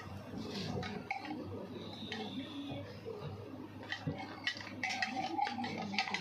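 Dishes clinking and knocking while people eat by hand: scattered light clicks of plates and bowls being handled.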